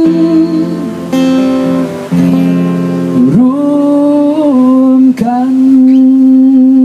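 Acoustic guitar played live with a man singing without words over it. His voice slides up a little after three seconds in, then settles on one long held note for the last second and a half.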